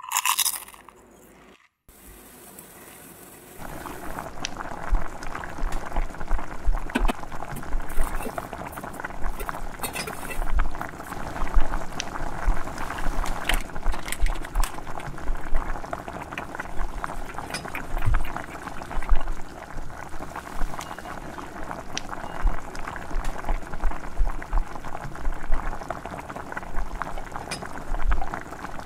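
Milk boiling in a steel pot, a steady bubbling that builds up about four seconds in, with scattered small clinks of a steel spoon against the pot.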